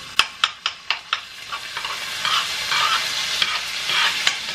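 Butter-and-garlic sweet chili sauce being stirred in a hot frying pan. A quick run of sharp clicks of the utensil against the pan comes first, then scraping strokes over a sizzle that grows louder.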